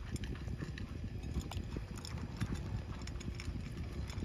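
Anatolian shepherd dogs eating dry food from bowls: many small irregular crunches and clicks over a low rumble.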